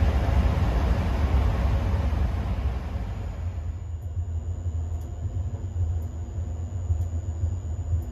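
Running noise inside a PKP Intercity passenger coach on the move: a low rumble of wheels and running gear with a rushing hiss over it. About three and a half seconds in, the hiss falls away, leaving the low rumble, a thin steady high whine and a faint tick about once a second.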